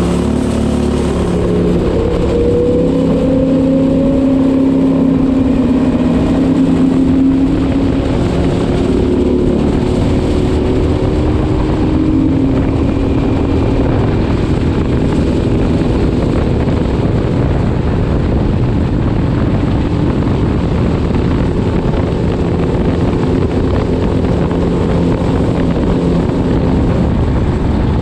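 Go kart's Tillotson 212cc single-cylinder engine driving through a CVT torque converter at wide-open throttle on a top-speed run. The revs climb over the first several seconds, then hold steady as the kart reaches about 45 mph. Heavy wind rush on the microphone runs under the engine.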